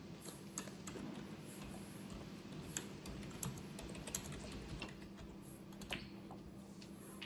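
Computer keyboard typing: irregular key clicks, several a second with pauses between, over a faint steady hum.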